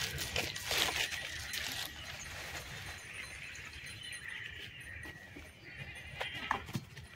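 An animal's calls, with a few sharp clicks or knocks in the first two seconds.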